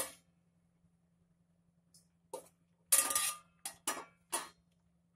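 Stainless-steel pan lid taken off and set down on a steel stovetop: a handful of short metal clinks and clanks starting about two seconds in, one of them ringing briefly.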